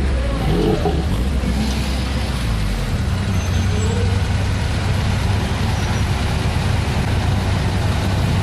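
Classic cars and motorcycles driving slowly past in a convoy, their engines running one after another. A car's engine note bends as it passes near the start; from about three seconds in a steady, low engine drone takes over as the motorcycles come by.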